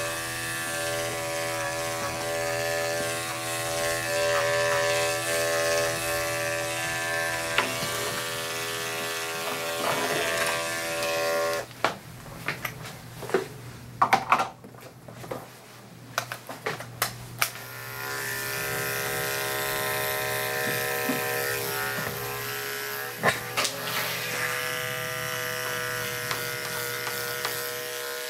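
Corded electric dog-grooming clipper running with a steady hum as it shaves off a matted coat. About twelve seconds in the hum stops for several seconds, leaving a few clicks and handling noises, then the clipper runs steadily again.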